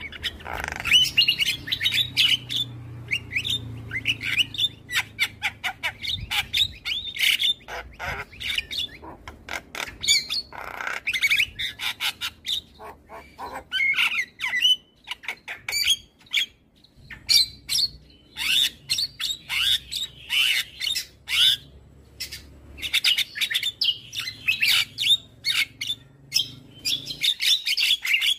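Javan mynas calling: dense runs of harsh squawks, chatter and clicking notes, in phrases broken by short pauses.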